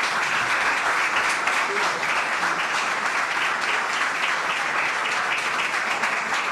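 Audience applauding: many people clapping at a steady level throughout.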